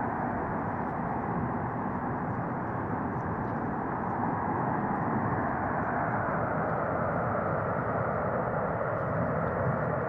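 Steady, unbroken rushing noise of natural gas burning as it escapes from a ruptured high-pressure pipeline.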